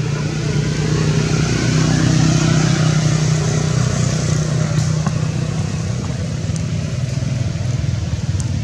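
An engine running steadily, growing louder over the first couple of seconds and then easing off a little.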